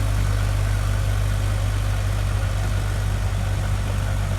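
Farm tractor engine running steadily while driving a snowblower attachment, with a constant low hum and a hiss of snow being thrown.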